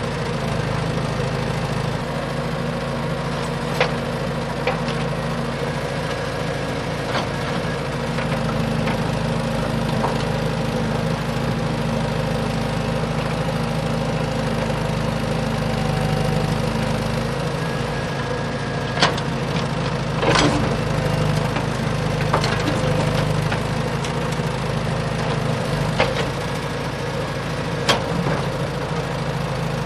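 A motor or engine running steadily at an idle-like pitch, with a number of sharp clicks and knocks scattered over it.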